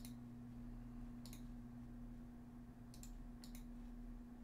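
A few faint computer mouse clicks: one at the start, one about a second in, then three close together near the end, over a steady low hum.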